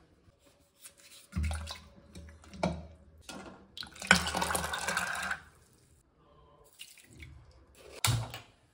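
Soaked chickpeas and their soaking water poured from a glass bowl into an aluminium pressure cooker over potatoes: a splashing pour lasting just over a second, about four seconds in. A couple of knocks from handling come before it, and another short knock near the end as the cooker goes onto the gas stove.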